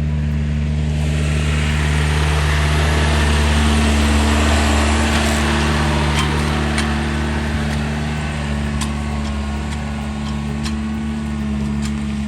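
Case CX80C excavator's diesel engine working hard, its steady low drone swelling for a few seconds along with a rush of noise. Scattered sharp clicks and cracks follow in the second half.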